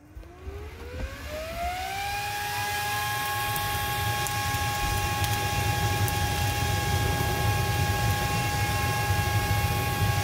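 Small 40 mm server fan (Delta GFB0412EHS) switched on, its whine rising in pitch for about two seconds as it spins up, then holding at a steady high whine with a rush of air as it blows on a wood fire.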